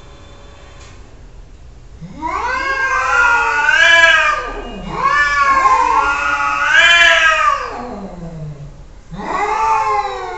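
Domestic cats caterwauling in a face-off: three long, wavering yowls that rise and fall in pitch, starting about two seconds in. These are the threat yowls cats make before a fight.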